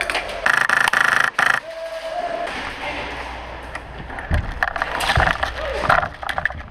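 Airsoft rifle firing a rapid full-auto burst of about a second, starting about half a second in. Later come several knocks and low thumps, with a voice.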